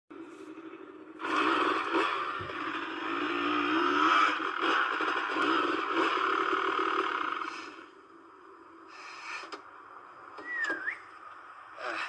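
Motorcycle engine running, its pitch wavering up and down, then dropping away about eight seconds in. Near the end comes a short whistle that slides down and then up.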